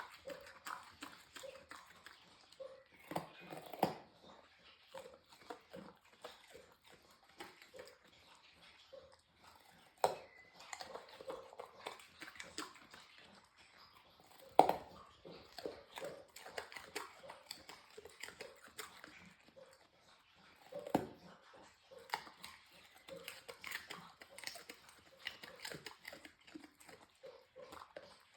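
Dogs crunching raw carrots, with a dog lapping water noisily from a bowl, in irregular wet clicks and crunches. A few sharper knocks stand out, the loudest about halfway through.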